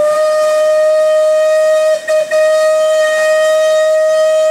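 Steam whistle of BR(S) Rebuilt Light Pacific 4-6-2 no 34046 Braunton blowing a long, steady single-note blast, broken briefly about two seconds in and then sounding again.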